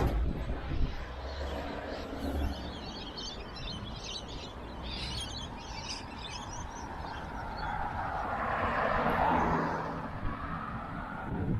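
Street ambience. A low wind rumble on the microphone fades after the first couple of seconds, small birds chirp a few seconds in, and a passing car's tyre noise swells and fades near the end.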